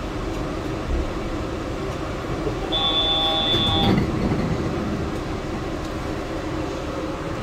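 Yurikamome rubber-tyred automated guideway train running along its elevated track, heard inside the cabin as a steady rumble. A steady high tone sounds for about a second a little before the middle, while the rumble swells briefly.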